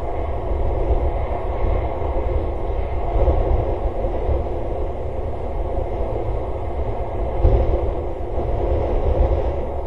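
Wind buffeting a webcam's microphone: a steady rumbling noise that swells and eases in gusts, loudest about three and seven and a half seconds in.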